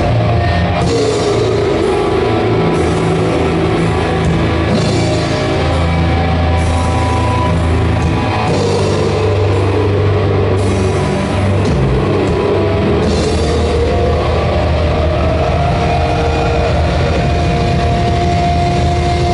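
Doom metal band playing live: distorted guitars, bass, keyboards and drums in a heavy passage of long, sustained notes.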